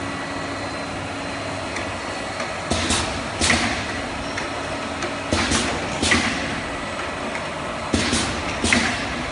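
Automatic liquid filling and capping line running: a steady machine hum broken, from about three seconds in, by sharp hissing bursts, several coming in pairs, from the machine's air-driven filling and capping heads.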